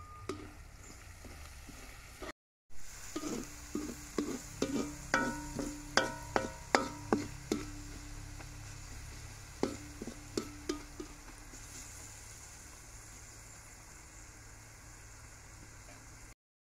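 Metal ladle scraping and knocking against a large steel wok while stir-frying grated carrots and chicken, the pan ringing briefly at each stroke, over a steady sizzle. After a short break near the start the strokes come quickly for about eight seconds, then only the sizzle remains.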